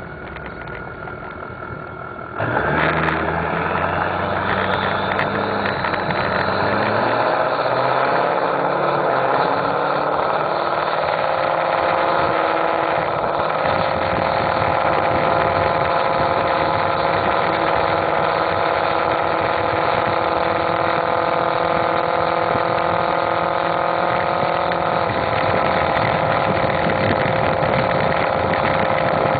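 Ford 6.0L Power Stroke turbo-diesel V8, with an aftermarket turbo, heard close to its bed-mounted exhaust stack while driving. About two and a half seconds in it is put hard under load and gets much louder, and a high turbo whistle climbs over the next few seconds. The engine note rises steadily for about ten seconds, then holds a steady pitch, dipping slightly near the end.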